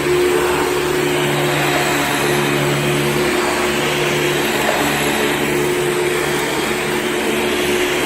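Hoover PowerDrive upright vacuum cleaner running steadily on carpet: a loud, even motor hum over the rush of air. Its lowest hum note drops back a little about three seconds in, then returns near the end.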